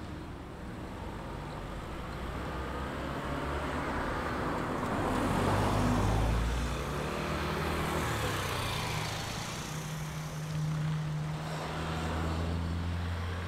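Boeing 737 jet taxiing past, its engine sound swelling to a peak about six seconds in and then easing off, the pitch sliding down as it goes by.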